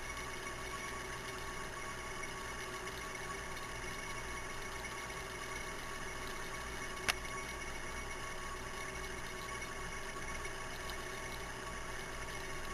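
A steady mechanical hum with hiss, holding several fixed tones over a low rumble, broken by one sharp click about seven seconds in.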